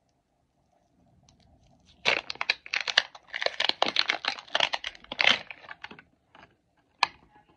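Thin plastic wrapping crinkling and tearing as a mini toy capsule is unwrapped by hand, in a dense run of crackles for about four seconds. A single sharp click near the end.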